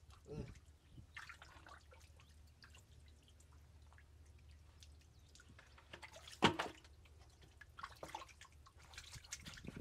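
Scattered splashes and drips of water, with one louder splash about six and a half seconds in.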